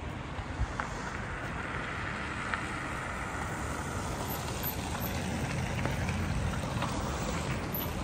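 Steady hiss of street traffic in a town centre, swelling slightly in the second half.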